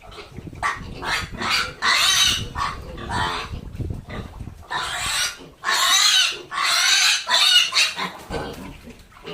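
Pig squealing in a run of loud, shrill cries, the loudest in the second half, over a low rumble in the first few seconds.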